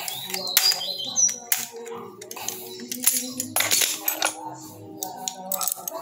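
Metal clinks, knocks and a short squeaky scrape near the start as a washing machine's suspension rod is handled, its spring and damper cup shifted along the steel rod while the spring is being adjusted, over background music.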